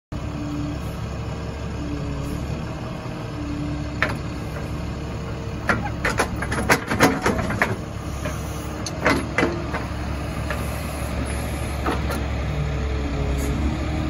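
Bradco 509 truck-mounted backhoe working: a steady engine hum with a tone that steps up and down as the controls are worked, and sharp metal clanks and knocks, thickest about six to eight seconds in, as the boom and bucket dig.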